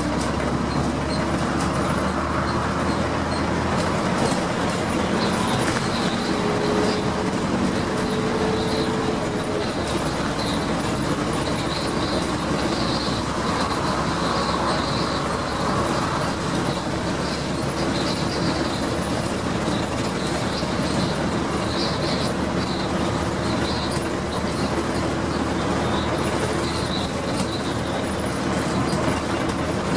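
Daimler Fleetline double-decker bus with a Leyland engine heard from the upper deck while cruising: the engine runs steadily under load over loud road and body noise, with light rattles from the windows and panels. The engine note shifts slightly about nine seconds in.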